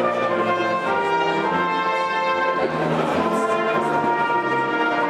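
Brass ensemble of tuba, trombone and trumpets playing slow, held chords that change about every second.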